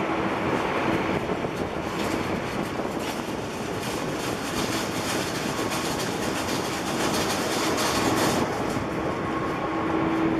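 Bombardier Q400 turboprop airliner taxiing with its two Pratt & Whitney PW150A engines and six-blade propellers turning at low power: a steady rushing drone with a constant low hum.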